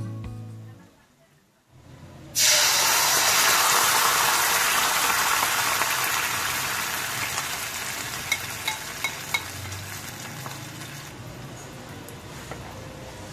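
Sauce sizzling in a hot wok, starting suddenly and loudly about two seconds in as it is poured in, then slowly dying down, with a few small pops as it fades.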